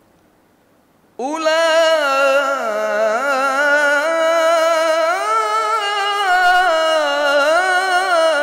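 A man's solo Qur'an recitation in the melodic tilawah style. After a quiet pause his voice enters about a second in and carries one long, ornamented phrase, holding notes and winding up and down in pitch.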